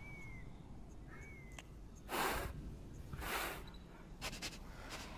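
Gorilla huffing: two breathy snorts about a second apart in the middle, then a few soft clicks, with two faint short chirps near the start.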